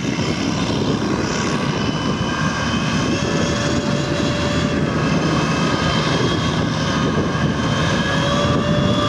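Stormer tracked armoured vehicle driving past, its Perkins six-cylinder diesel running under load. Steady whining tones ride over the engine rumble.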